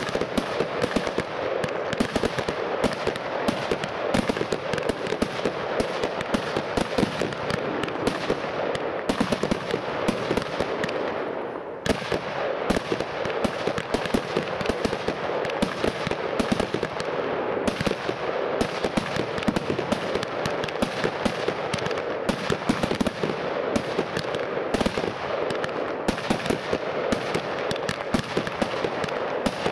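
Weco Power Tec PRO 300.1 compound fireworks cake firing without a break: rapid launches and aerial bursts several times a second over constant crackling. The firing eases briefly about eleven seconds in, then picks up again with a loud shot.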